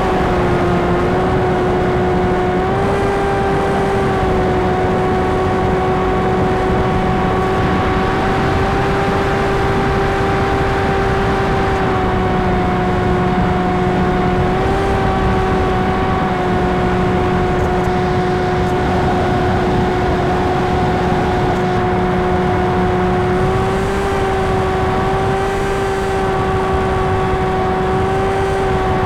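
Electric brushless motor and propeller of an RC fixed-wing FPV plane running at steady cruise throttle: a constant whine that rises slightly in pitch about three, fifteen and twenty-four seconds in, over a steady rush of air.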